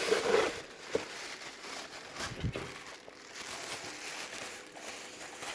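Rubbish being rummaged through in a dumpster: faint rustling and crinkling, with a couple of short knocks as items are picked up and moved.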